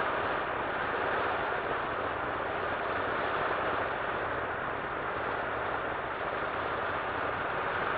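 Steady rush of wind and the drone of a C-47's twin radial engines, heard from the aircraft's open jump door in flight.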